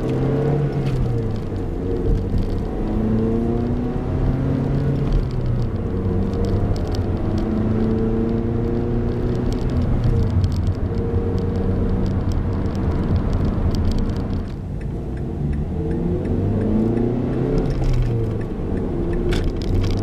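2012 Mazda3 Skyactiv's 2.0-litre four-cylinder engine accelerating through the gears of its six-speed manual gearbox, heard from inside the cabin. The engine note rises, drops at each upshift, and climbs again, several times over.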